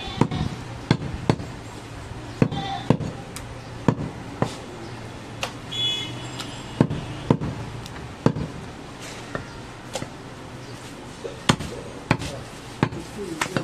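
Long butcher's knife striking a wooden log chopping block in sharp, irregular knocks, about one or two a second, while goat meat is cut off a leg.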